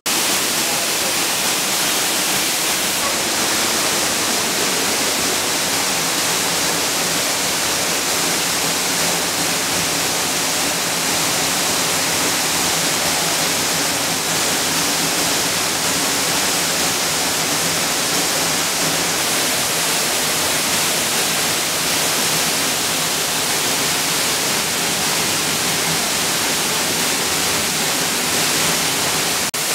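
Waterfall rushing steadily: a dense, even wash of falling water that does not change in level.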